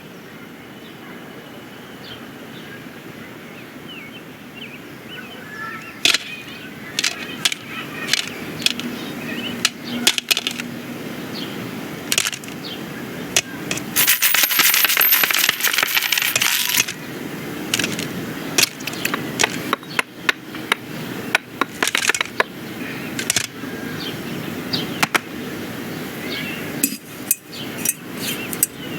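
Animated-film sound-effects track of toy play: a run of sharp clicks, knocks and clatters over a low background, with a loud rushing noise lasting about three seconds in the middle.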